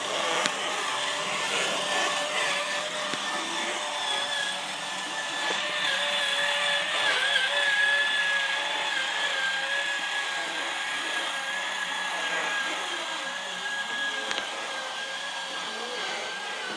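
Electric motor and gearbox of a toy ride-on ATV whining steadily as it drives, the pitch wavering slightly.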